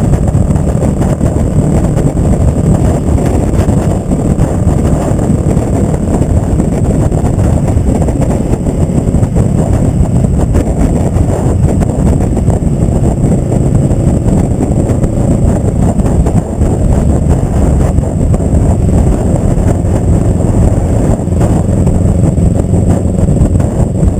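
Kawasaki ER-5's 500 cc parallel-twin engine running under way through a short Delkevic Mini 8-inch slip-on exhaust, giving a loud, steady exhaust note.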